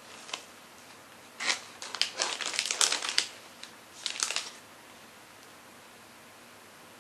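Crunching on thin, crispy baked pretzel chips: a dense run of crisp crunches starting about a second and a half in and lasting nearly two seconds, then a shorter burst around four seconds.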